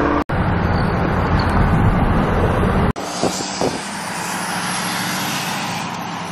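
Road and engine noise of a car heard from inside the moving cabin: a deep, even rumble with hiss. About three seconds in, it cuts abruptly to a steadier hiss with far less low rumble.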